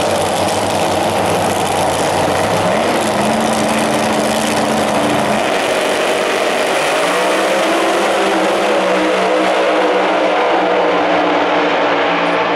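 Drag racing cars' engines running loud on the start line and revving up about three seconds in. From about seven seconds in they launch and pull away down the strip at full throttle, the engine note climbing and then holding.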